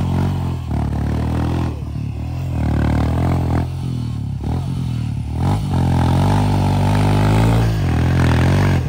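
Royal Enfield Himalayan's single-cylinder engine revving hard as its rear tyre spins in loose dirt. The bike is stuck on a steep climb and being pushed. The engine note dips and picks up again several times as the rider works the throttle.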